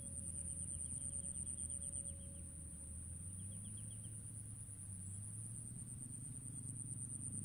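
Quiet outdoor ambience by a pond: a steady high-pitched insect whine over a low rumble, with a faint rapid trill of ticks in the first few seconds.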